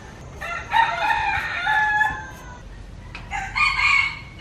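A rooster crowing: one long crow, then a second shorter one about three seconds in.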